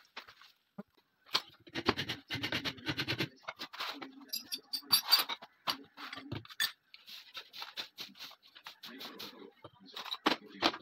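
Irregular knocks, scrapes and clinks of hand work on a new wooden shotgun stock as it and its metal lock parts are handled, set down on a board and clamped in a steel bench vise. There is a run of quick rattling strokes about two seconds in, and ringing metal clinks around five seconds.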